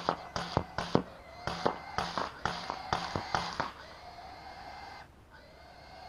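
A rapid string of sharp rifle shots, about three a second, which stops about four seconds in. After it comes a quieter, steady high-pitched whine.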